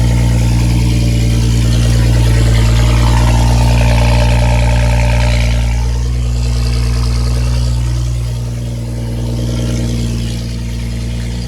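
BMW E92 335i's turbocharged inline-six idling steadily at a raised cold-start idle just after firing up, the level easing down a little around seven seconds in.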